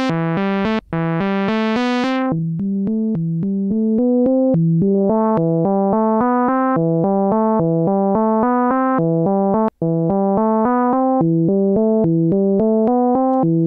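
Roland SH-32 synthesizer playing a quick repeating sequence of short low notes on a plain sawtooth-wave patch while its filter is swept by hand. The notes are bright and buzzy at first, turn dull about two seconds in, then open part way and darken again. The sequence breaks off for an instant twice.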